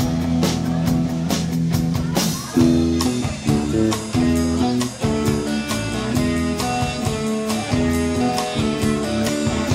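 Live rock band playing electric guitars over a drum kit. A loud crash comes about two seconds in, then a guitar plays a line of single held notes over steady drumming.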